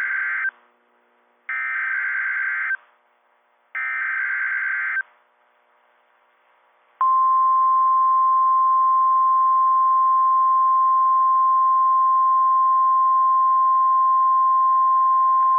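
NOAA Weather Radio EAS alert: the SAME header data bursts, short buzzy warbling blasts, with the end of one and then two more about a second apart. About two seconds later the steady 1050 Hz warning alarm tone starts, a loud single-pitch tone held about nine seconds over a faint radio hiss.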